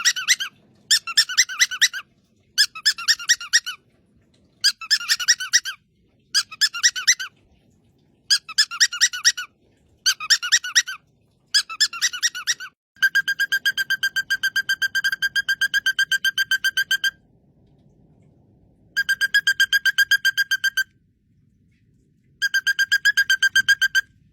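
Parrot giving rapid, pulsed squeaky calls in repeated bursts about a second long. Around the middle they stretch into a four-second run of quick even pulses on a steady pitch, followed by two shorter runs.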